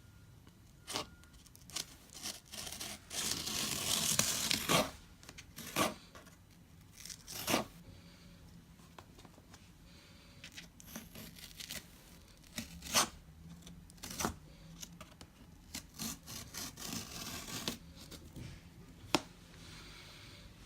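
Packaging being torn and handled during an unboxing: a long tearing, rustling stretch a few seconds in, then scattered rustles, scrapes and sharp knocks.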